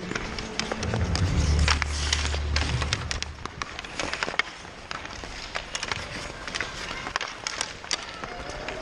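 Ice skates scraping and carving on the rink, with many sharp clacks of hockey sticks and puck, heard close up among the skating players. A low rumble sounds for about two seconds starting a second in.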